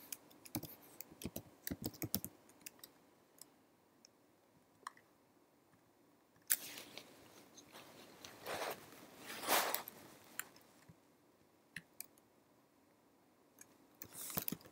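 Computer keyboard keys clicking in short runs as commands are typed into a terminal, with pauses between runs. A couple of louder, longer noises come a little past the middle.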